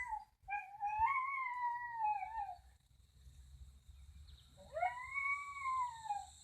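A dog howling: two long, wavering howls, the second rising and then falling away. A faint steady high-pitched tone runs behind from about a second and a half in.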